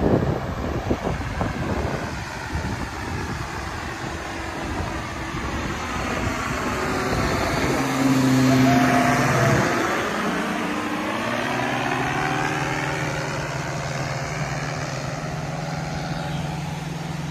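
Powered paraglider's propeller engine running as it flies low overhead. It grows louder to a peak about halfway through, then eases off as it moves away. Wind buffets the microphone in the first couple of seconds.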